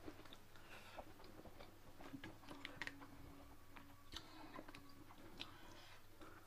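Faint close-up eating sounds: a person chewing and biting food, with scattered small clicks and crunches.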